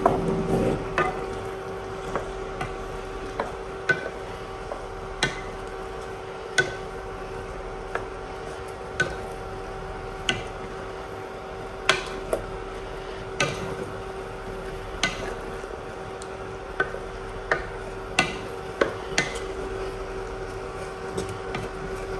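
Wooden spatula stirring chopped okra in a pot, knocking against the pot's side in sharp taps roughly once a second, over a steady low hum.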